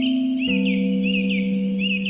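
Slow ambient music of long held tones, shifting to a new, lower chord about half a second in. A small bird chirps repeatedly over it in short, quick notes.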